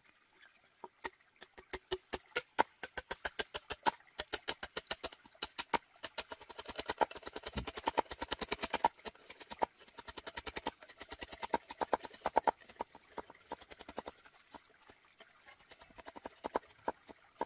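A machete blade chopping and shaving a length of green bamboo: a run of sharp knocks, a few a second at first, coming faster and closer together through the middle.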